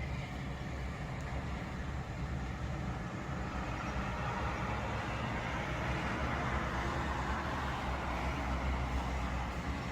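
Steady road traffic noise: a low engine rumble with tyre hiss that swells midway as a vehicle passes.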